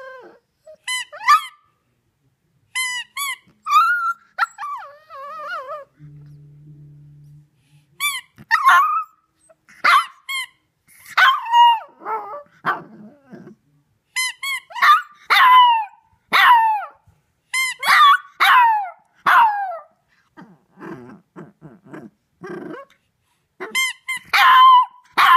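Shih Tzu puppy howling in a long series of short, high, wavering yowls, most sliding down in pitch, with gaps between them and some lower whimpering calls. The howling is set off by a squeaky toy.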